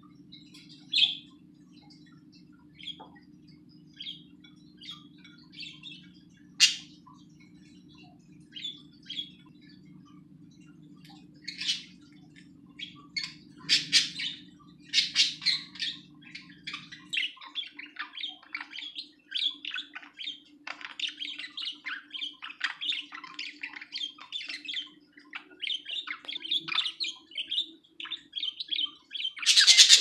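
Budgerigars chirping: scattered single chirps at first, building about halfway through into continuous warbling chatter, with a loud burst of chirps near the end.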